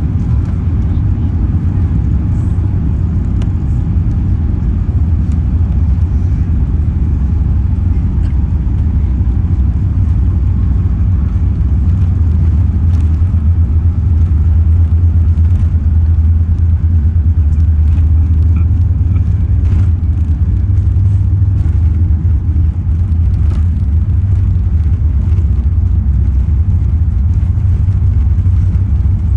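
Airbus A380 cabin during the takeoff roll: the engines at takeoff thrust and the wheels rolling down the runway make a loud, steady low rumble, which grows a little louder about halfway through.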